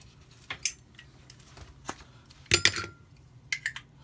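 Sharp metallic clicks and clinks from Zippo lighter cases and a butane insert being handled. The loudest is a quick cluster about two and a half seconds in, which leaves a brief ring.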